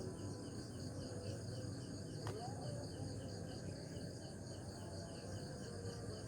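Night insect chorus: crickets chirping in an even pulse of about four chirps a second over a steady high trill, with a low rumble underneath and a single sharp click a little past two seconds in.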